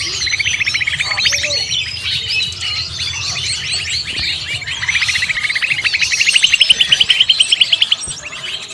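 A dense mixed-bird lure recording: many small birds chirping and calling at once, combined with greater green leafbird (cucak ijo) calls. From about five seconds in, a fast run of repeated notes climbs in pitch and grows loudest, then breaks off near the end.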